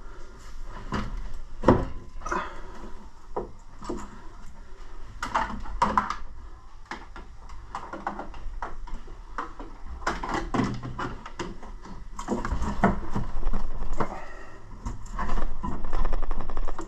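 Irregular clicks, knocks and rubbing of hands working metal pipework inside an open gas boiler: the flow pipe being worked and pushed up into the bottom of the heat exchanger. The sounds are louder and busier in the last few seconds.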